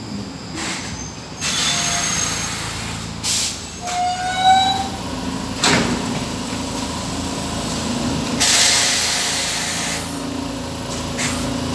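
Stockholm metro C6 train coming to a stop at the platform over a steady low hum. Compressed air hisses in several bursts, with a short squeal rising in pitch about four seconds in and a clunk near six seconds. A longer hiss of released air follows about eight and a half seconds in.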